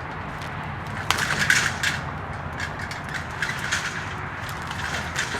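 Irregular crunching and knocking of wood being handled, densest between one and two seconds in, over a steady low rumble.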